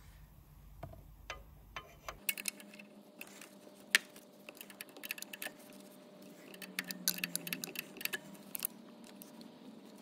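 A spanner working loose the 14 mm union nut on a diesel injector's high-pressure fuel pipe: irregular metallic clicks and ticks of tool on nut and pipe, with one sharp knock about four seconds in.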